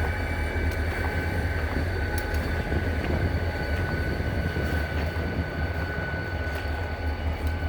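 Diesel locomotive engine idling: a steady low rumble with a thin, steady high tone above it.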